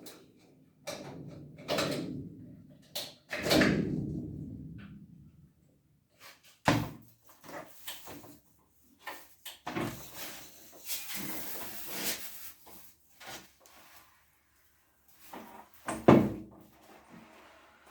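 Irregular knocks, thumps and clatter of objects being handled, with a short hiss around the middle and the sharpest knock near the end.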